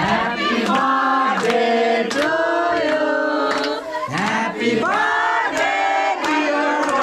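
A group of people singing together in a birthday celebration song, with hand clapping keeping a steady beat.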